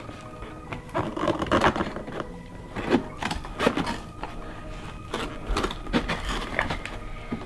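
Toy packaging being pulled and worked apart by hand: irregular rustling, scraping and crackling of cardboard and plastic, with a few sharper scrapes.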